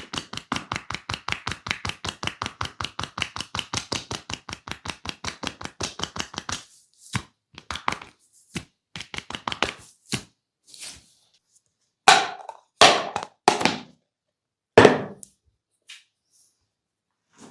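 Rapid hand-percussion massage: the barber's hands chopping and tapping on the body at about eight strikes a second. The tapping stops about six and a half seconds in, and a few separate, louder hand strikes follow.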